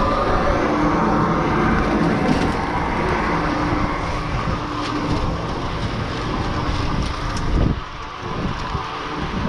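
Chairlift terminal machinery running: a steady mechanical hum and clatter as the chair loads and moves through the station. The hum drops away about eight seconds in, as the chair leaves the terminal, and wind noise on the microphone takes over.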